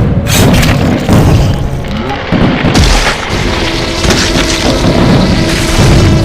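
Loud, continuous booms and crashes over music, dense and heavy throughout with repeated low hits.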